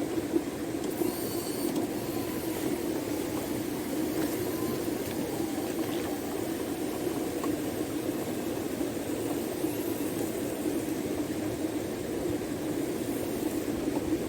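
Steady rush of a river in flood, with a faint thin whine that drifts in pitch now and then.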